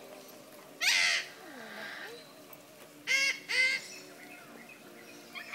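Birds calling loudly: three calls, each rising then falling in pitch, one about a second in and two in quick succession about three seconds in.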